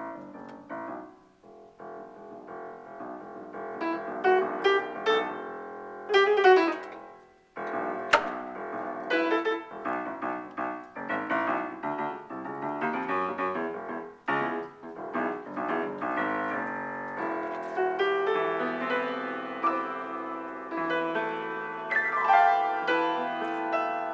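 Piano being improvised on: chords and runs of notes, with a brief pause about seven seconds in, then a sharp struck note and denser, sustained chords toward the end.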